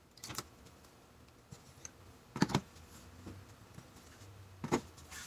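Ignition coil packs being wiggled and pulled out of the spark plug wells of a 2.7-litre Toyota four-cylinder engine: three short clicks, about two seconds apart.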